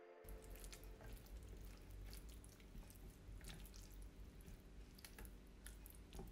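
Chopsticks mixing sauce-coated beef strips, peppers and bamboo shoots in a ceramic bowl: faint, irregular wet clicks and taps.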